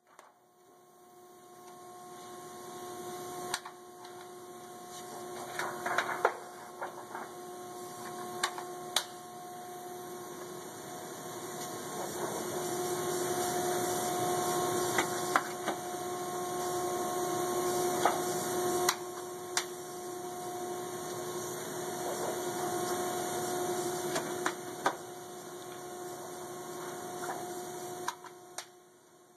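Steady pressroom machinery hum with a constant tone, and scattered sharp clicks and crinkles as a thin metal newspaper printing plate is flexed around the press cylinder and snapped into its lockup.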